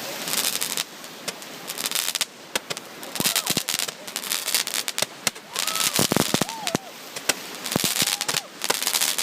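Fireworks going off in a rapid, irregular run of sharp bangs and crackles, with people's voices calling out between them.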